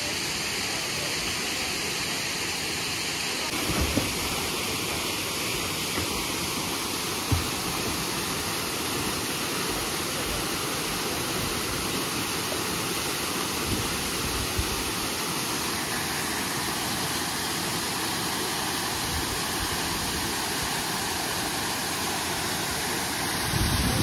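Waterfall pouring into a rock pool: a steady, even rush of falling water, with a few brief low thumps now and then.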